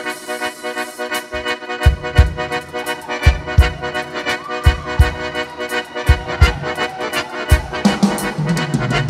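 Instrumental break of an upbeat Portuguese-language gospel song: sustained chords, joined by a steady beat about two seconds in.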